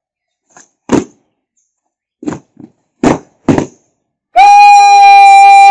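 Cadets' drill boots stamping on paving: several sharp stamps, followed about four seconds in by a loud, steady held note on a bugle.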